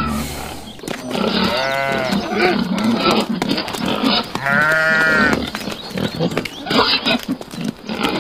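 Farm animal calls from a pig and a sheep: two long drawn-out calls about two and five seconds in, each rising and falling in pitch, with shorter noises in between.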